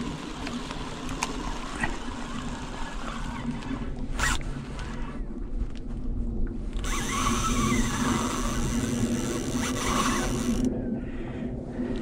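Fishing reel running with a whirring, ratcheting noise, louder from about seven to ten and a half seconds in, as a fish takes the dead bait.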